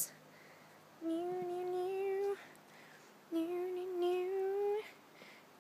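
A person singing two long held notes, each about a second and a half, drifting slightly upward in pitch, with short pauses between them.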